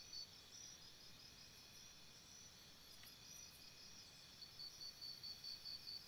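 Faint chorus of forest insects: a high pulsing trill at about four pulses a second fades out just after the start and comes back about four and a half seconds in, over a steady high hum.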